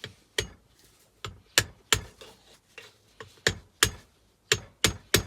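Hammer blows on a magneto, bashing its U-shaped laminated steel core loose. About ten sharp strikes come in irregular groups of two or three, each with a short metallic ring.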